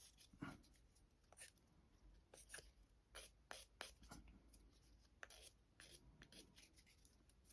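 Faint, irregular scratching strokes of a sanding stick rubbed along the edges of a small plastic model-kit part to clean them up.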